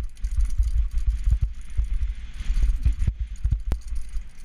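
Mountain bike pulled at speed over a rough dirt track: an uneven low rumble of jolts and rattles, with a couple of sharp knocks near the end.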